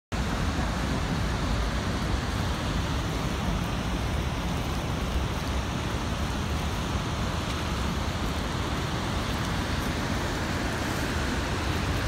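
Steady rushing roar of the Rhine Falls and its churning river water, with a deep rumble underneath.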